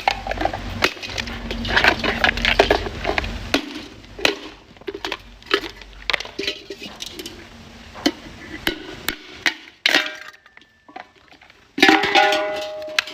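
Scrap being handled: irregular clinks, clatters and knocks of hard objects striking one another, busiest in the first few seconds, then a brief lull before a burst of clanking with a ringing tone near the end.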